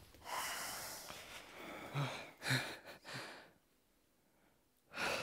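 Breaths and short breathy sounds from a performer, picked up close by a headset microphone, with a few brief voiced noises; the sound drops out to silence for a moment near the end.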